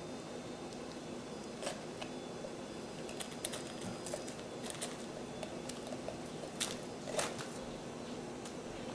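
Hands squeezing and pulling apart a raw bell pepper, giving scattered crisp snaps and crackles, with two louder snaps about two-thirds of the way through. A steady low hum runs underneath.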